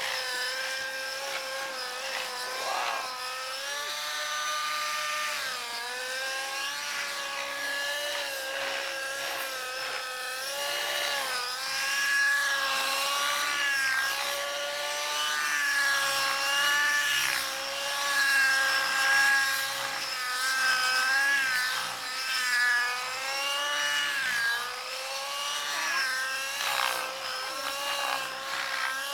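Fuel-powered radio-controlled model helicopter flying aerobatic stunts: its high engine and rotor whine keeps bending up and down in pitch with the manoeuvres.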